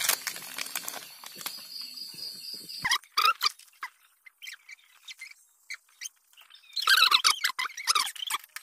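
Plastic packet of a new ball bearing crinkling as it is opened, then small birds chirping in short bursts about three seconds in and again near the end.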